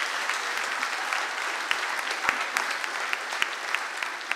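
Audience applause in a hall, a dense patter of claps with a few sharp single claps standing out, starting to ease off near the end.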